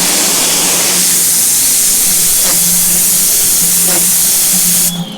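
Lavor electric pressure washer spraying through its turbo-jet rotating nozzle: a loud, steady hiss of the water jet over a low steady hum. The spray cuts off sharply near the end.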